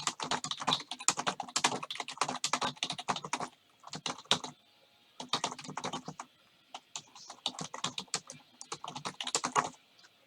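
Typing on a computer keyboard in quick bursts of key clicks with short pauses, stopping near the end: a message being typed out.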